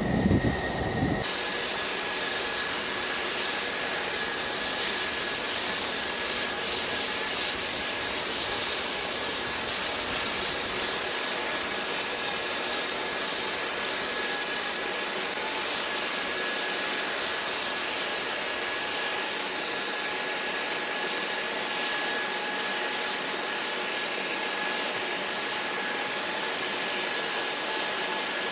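A parked Lockheed C-5 Galaxy's jet turbine running steadily: an even jet hiss with a thin high whine, setting in about a second in.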